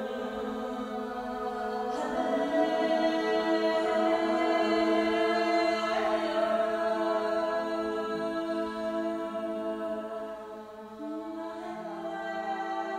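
Slow music of long held vocal chords, the chord shifting about two, six and eleven seconds in.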